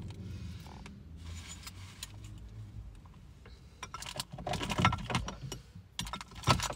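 Snack packets and small objects being handled: faint rustling, then a run of crinkles, clinks and knocks in the second half, loudest near the end.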